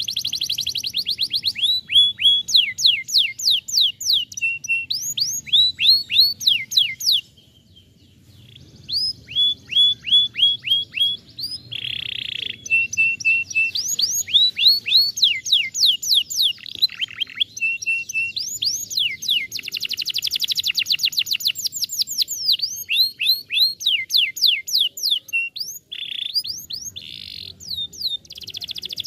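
Domestic canary singing: fast rolling trills of quickly repeated down-slurred whistled notes, changing from one tour to the next, with a few short buzzy notes mixed in and a brief pause about seven seconds in.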